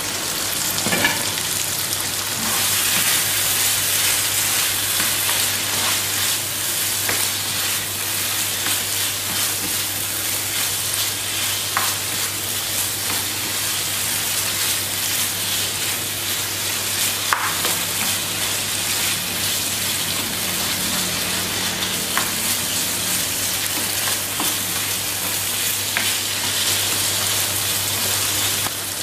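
Beef cubes sizzling as they fry in curry paste and oil in a frying pan. The meat is stirred with a spatula, with a short scrape of the spatula on the pan every few seconds.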